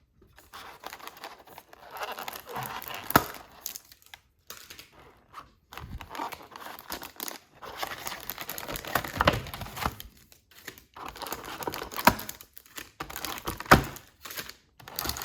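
Cardboard compartments of a trading-card advent calendar being torn and handled, with card packs crinkling as they are pulled out, and a few sharp snaps.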